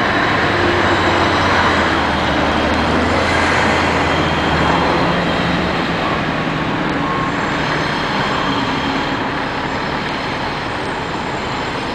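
Subway train running along an elevated steel structure: a loud, steady rumble of wheels on rail. A low hum underneath fades out about five seconds in, and the noise eases a little toward the end.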